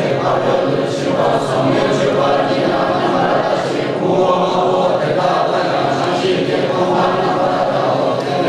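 A roomful of Tibetan men and women chanting together in unison from printed texts, many voices blending into one steady, continuous chant.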